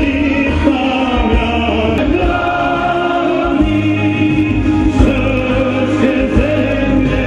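Music with a choir singing, held notes at a steady level.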